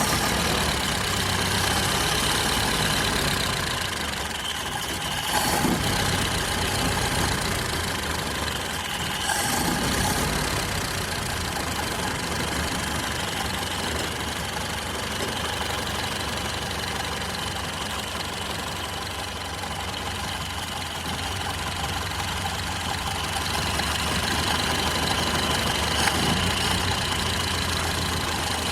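Antique car engine idling steadily, with brief louder surges about five and ten seconds in.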